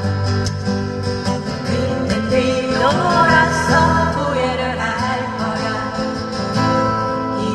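Korean trot song played through a busker's sound system: a steady bass line under a melody that slides in pitch through the middle, sung or played.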